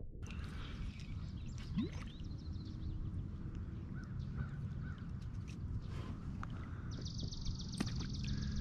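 Wild birds calling, with a fast high trill over the last second and a half, over a low steady rumble.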